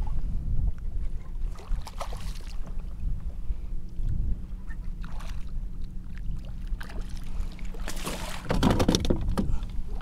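Handling noise aboard a fishing kayak over a steady low wind rumble on the microphone: scattered small knocks, then a louder burst of clattering and scraping about eight seconds in.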